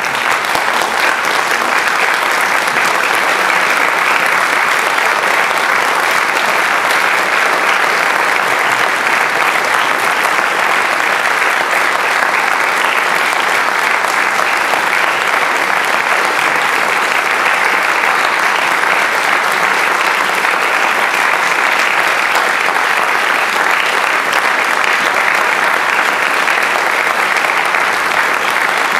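Audience applauding: dense, steady clapping that breaks out all at once and holds level.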